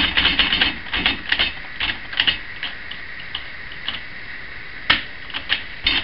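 Hammond Folding Multiplex typewriter being typed on with no paper loaded: a quick run of key strikes, clacking in rapid succession for the first two seconds or so, then slower, scattered strikes with two louder ones near the end.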